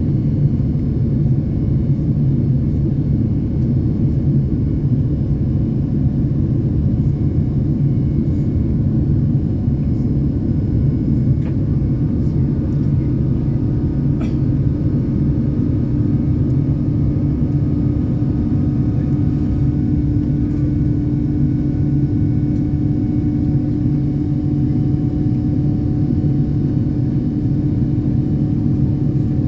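Steady low rumble of an Airbus A330neo airliner's cabin noise, engines and airflow heard from inside the cabin, holding even throughout.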